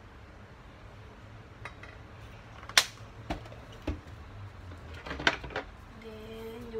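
Kitchen clatter: a few sharp clinks and knocks as bottles and utensils are put down and picked up on the counter beside a stainless steel mixing bowl. The loudest comes about three seconds in, with a cluster of smaller clinks about five seconds in.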